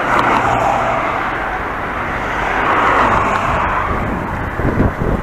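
Road traffic: cars passing close by, their tyre and engine noise swelling and fading twice, with a few low thumps near the end.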